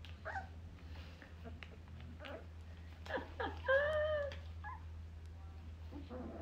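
Young puppy whining: a few short high squeaks, then one longer whine, rising and falling in pitch, about halfway through.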